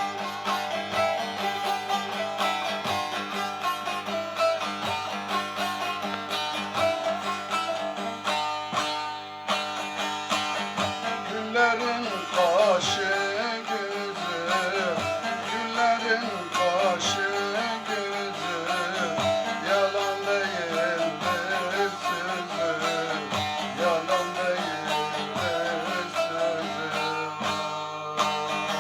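Instrumental music of a Turkish folk-style song: a plucked string instrument strummed throughout over a steady low beat, with a wavering vibrato melody line coming in about twelve seconds in.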